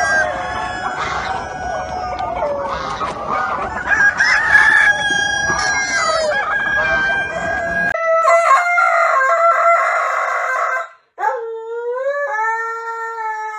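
Hens clucking and roosters crowing in a busy flock. About eight seconds in, this gives way to a Siberian husky howling in long drawn-out calls, with a short break partway.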